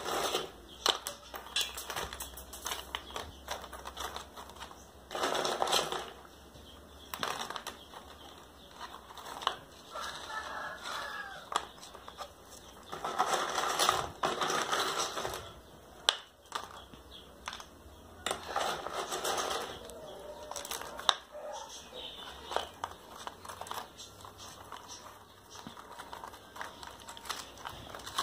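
Hands working chunky orchid potting substrate in around a seedling's roots in a clear plastic cup: irregular clicks and knocks of the pieces and the cup, with several louder rustling bursts as the mix is pressed down.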